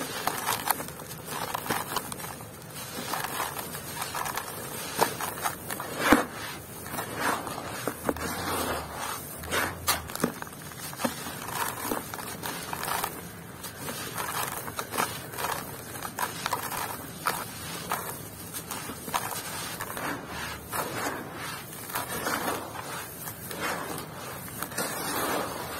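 A dry, gritty sand block being crushed and crumbled by hand, with crunching, crackling and scraping as grains and small chunks pour into a basin of loose grit. There is one sharp crack about six seconds in, typical of a chunk snapping off.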